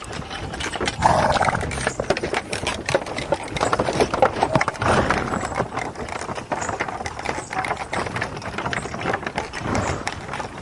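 Irregular clattering knocks throughout, with a short animal call about a second in.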